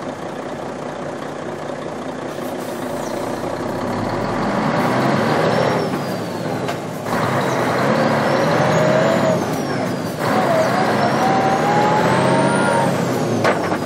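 Truck engine accelerating and shifting up through the gears. It grows louder from about four seconds in, dips briefly about seven and ten seconds in as the gears change, and rises in pitch after each shift with a high whine climbing above it.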